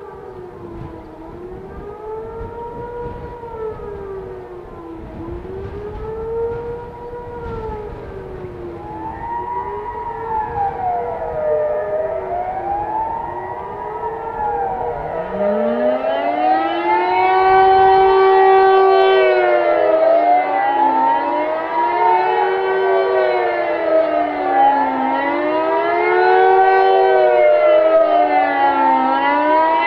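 Two civil defence sirens, a Kockum Sonics Delta-6-750 and an MSL-3, sounding the general alarm with a rise-and-fall wail that cycles about every four seconds. At first only one is heard. About halfway through a second, louder siren winds up from a low pitch and joins in, wailing out of step with the first.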